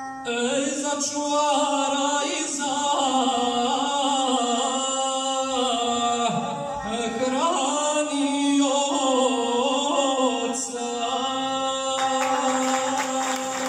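Epic song sung in a chanting style over a steady bowed-string drone, in the manner of gusle singing; the voice line bends and slides. Applause starts about two seconds before the end.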